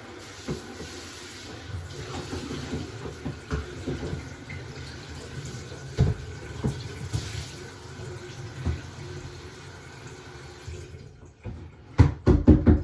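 Tap water running into a laundry sink as a cat litter pan is rinsed out, with occasional knocks of the pan against the sink. The water stops about eleven seconds in, followed by a quick series of sharp knocks near the end.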